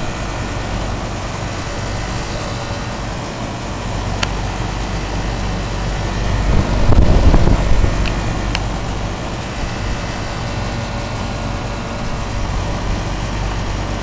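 Air-Ease Concept 10 outdoor air-conditioning condenser unit running, with a steady hum and airy fan noise. A louder low rumble swells for about a second and a half about halfway through, and a couple of faint clicks come before and after it.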